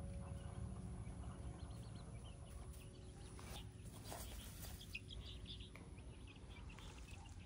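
Faint outdoor ambience with scattered short bird chirps, while background music fades out over the first few seconds.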